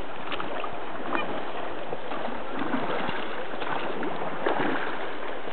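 Steady rush of river water around a drifting inflatable raft, with a few small splashes.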